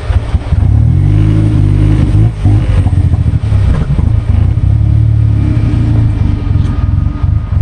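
Engine of the Goblin running and being revved, its pitch rising and falling, with the uneven running of a misfire.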